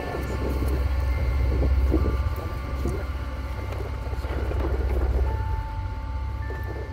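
Small outboard motor running steadily at low speed close by, with the scrape and slap of a wet gill net being pulled in over the boat's side.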